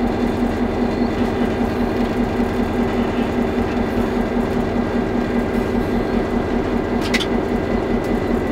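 EMD GP38-3 diesel-electric locomotive's engine running steadily, heard inside the cab as a loud, evenly pulsing drone. A brief high squeak about seven seconds in.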